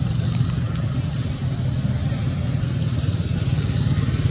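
Motor vehicle engine running steadily, a low rumble with a fast even pulse.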